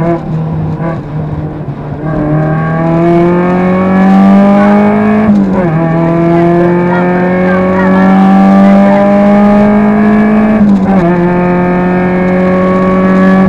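Rally car engine heard from inside the cabin under hard acceleration. The revs climb steadily, fall sharply at an upshift about five seconds in and again at about eleven seconds, then climb again.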